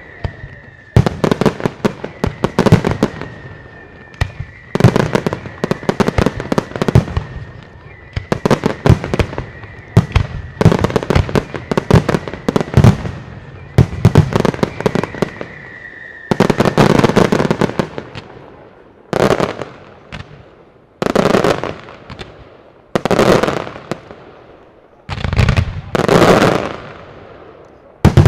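Aerial fireworks display: dense volleys of shell bursts and sharp crackling reports, with a steady high tone running under them through the first half or more. About two-thirds through, the volleys give way to separate loud bursts roughly every two seconds.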